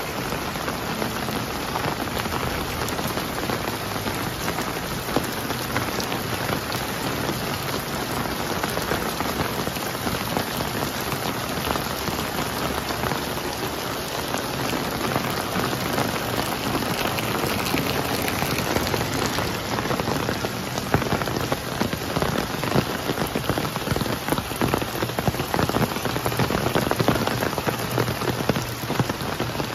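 Steady rain falling, a dense even hiss of many drops with some sharper individual drops standing out in the second half.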